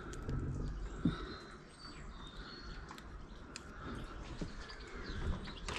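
Outdoor ambience of small birds chirping over a low rumble, with one sharp knock about a second in.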